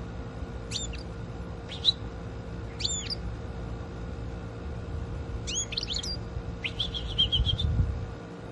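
Goldfinch chirping and tweeting: a few short, spaced calls, then a quicker cluster of notes and a rapid twittering phrase near the end, over a low steady rumble.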